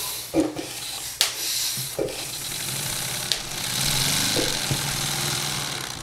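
Handmade wooden inline-4 compressed-air engine running on two of its cylinders, air hissing through its valve ports while the pistons and crank clatter lightly. A few sharp clicks come in the first two seconds, and the hiss swells past the middle.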